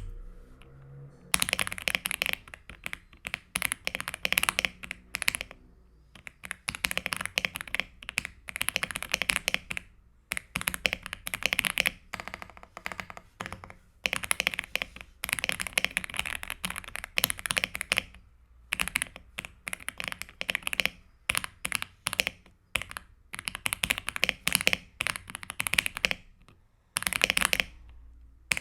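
Mechanical keyboard being typed on for a sound test: runs of fast keystrokes in bursts of a second or two, with short pauses between.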